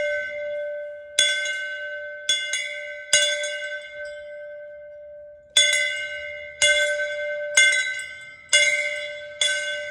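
Hand-rung temple bell struck about nine times at uneven intervals, each strike ringing on with the same clear pitch and fading before the next. There is a pause of a couple of seconds midway.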